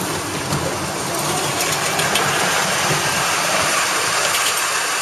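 Kayak hull running down a metal roller launch chute: a steady rumble with a light rattle from the rollers.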